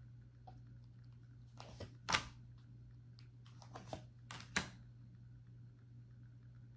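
Tarot cards being handled: a few short, sharp card snaps and flicks in the first part as a card is drawn from the deck and turned over, then quiet over a faint steady low hum.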